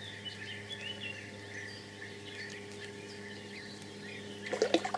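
Small birds chirping and singing in the background over a steady low hum, with a brief louder sound near the end.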